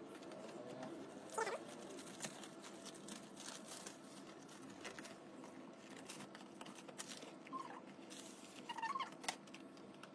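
Faint handling noise of a paperboard gift box: scattered light taps, clicks and rustles as the box is turned over and slid out of its sleeve.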